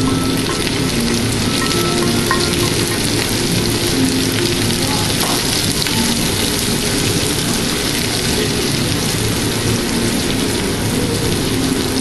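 Onion and tomato sautéing in butter and olive oil in a frying pan, a steady sizzle throughout.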